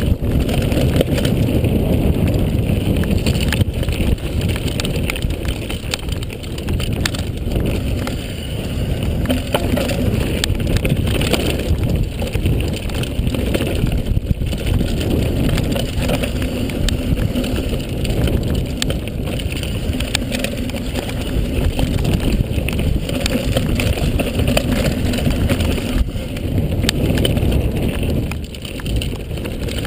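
Mountain bike riding fast down a dirt trail: steady wind noise on the microphone and tyre rumble, with frequent sharp knocks and rattles from the bike over bumps.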